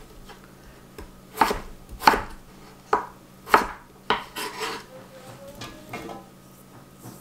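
Kitchen knife chopping peeled potatoes on a wooden cutting board: five sharp knocks, roughly one every half second to a second. After the last knock come softer scraping sounds as the chopped pieces are swept off the board with the knife into a metal pot.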